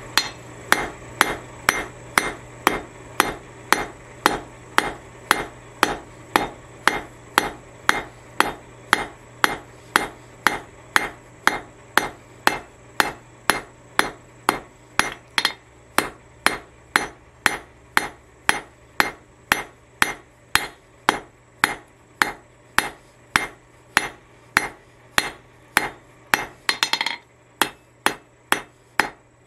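Blacksmith's hand hammer striking a thin red-hot bar on an anvil, steady blows about two a second, with a brief break in the rhythm near the end.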